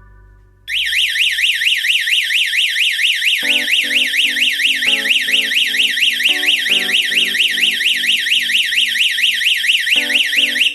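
Electronic siren of a security alarm system sounding a loud, fast warbling wail, about four sweeps a second. It starts under a second in and cuts off after about ten seconds, matching the alarm's automatic ten-second sounding before it switches itself off.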